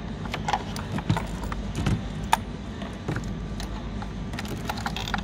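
Irregular metallic clicks and taps of a spark plug socket and extension being turned by hand, running a new spark plug into the cylinder head.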